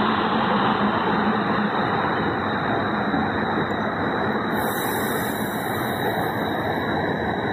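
Comet passenger coaches of a SEPTA electric push-pull commuter train rolling past a station platform at speed: a steady, even noise of the train going by.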